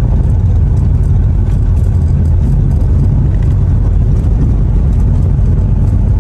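Steady low rumble of a road vehicle driving along a road, without change in pace.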